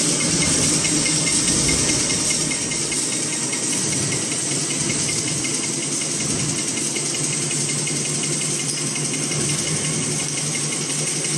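Napkin paper folding machine running at high speed: a steady mechanical hum and rattle.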